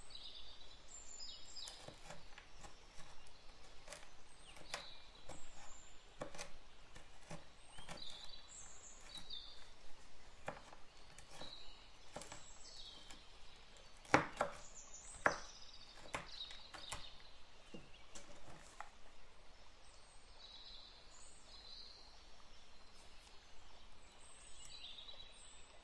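A knife chopping Toffifee candies (caramel, hazelnut and chocolate) on a wooden cutting board, the blade pressed down with both hands in repeated sharp chops, the two loudest about halfway through.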